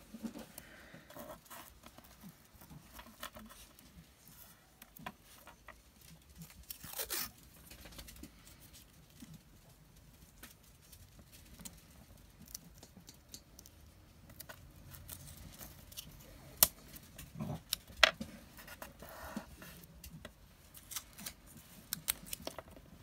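Washi tape being picked at, peeled and torn while strips are handled on a craft mat: scattered soft rips, rustles and small clicks, with two sharper clicks about three quarters of the way through.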